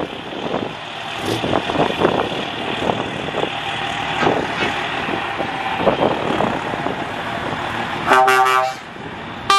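Two DAF XF trucks pulling trailers drive slowly past with their diesel engines running. Near the end comes one short horn blast.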